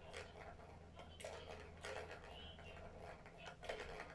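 Plastic ball rattling and clicking around the tracks of a plastic cat tower toy as a kitten bats at it, with several sharp clicks, the strongest near the end.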